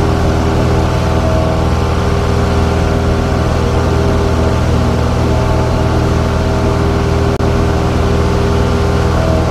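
Single-engine light aircraft's piston engine and propeller running steadily in cruise, heard from inside the cockpit as a constant, even drone.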